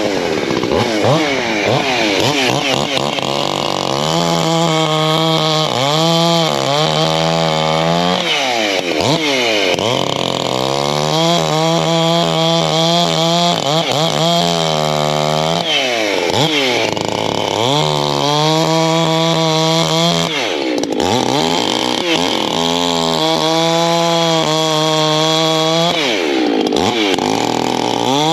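Ported Echo CS-620 two-stroke chainsaw bucking a log into firewood rounds. It runs at full throttle through each cut, and the revs drop and climb again between cuts about five times.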